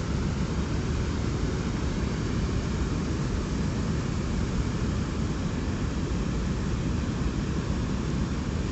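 Zayandeh Rood river water pouring over a stepped weir along a bridge: a steady, unbroken rush of falling water.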